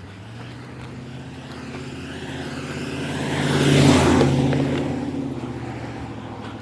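A motor vehicle passing close by on the road: engine hum and tyre noise build to their loudest about four seconds in, then fade away.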